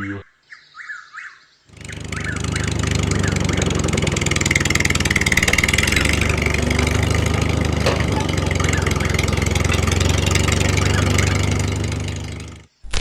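A motor or small engine starts up about two seconds in, runs steadily at an even pitch, and cuts off shortly before the end.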